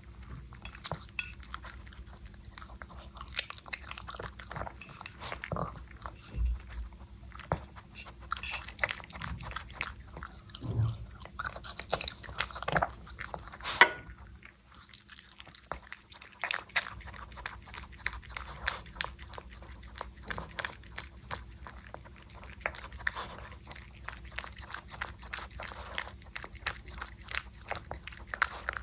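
A puppy chewing and eating: a long run of quick wet clicks, smacks and crunches, with one louder snap about halfway through.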